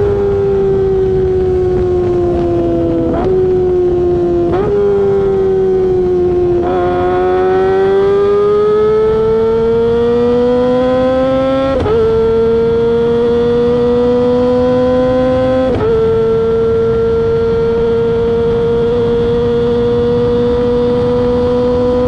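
Kawasaki ZX-25R's 250 cc inline-four running at high revs through a LeoVince aftermarket exhaust while being ridden. The engine note sags with two quick upward jumps. It then climbs steadily and drops back sharply twice, as at gear changes, and holds nearly steady near the end.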